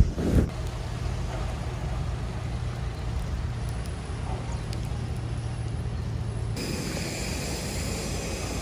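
A thump at the start, then a steady low vehicle rumble with a low hum. About two-thirds through it gives way to a brighter hiss with a steady high whine, the noise of an airliner on the apron.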